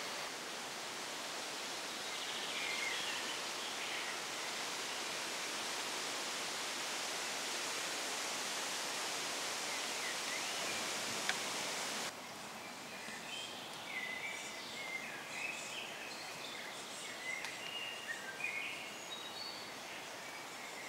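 A steady outdoor hiss for about twelve seconds, with a few bird chirps under it, then an abrupt cut to quieter surroundings where small birds chirp repeatedly.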